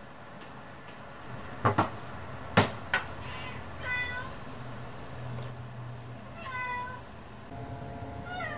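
Domestic cat meowing three times, after four sharp knocks, which are the loudest sounds.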